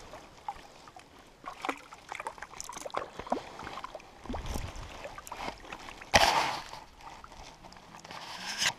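A small cutthroat trout being landed in the shallows of a rocky shore: splashing and sloshing in the water with scattered knocks, clatters and rustles of handling. One loud burst of noise about six seconds in.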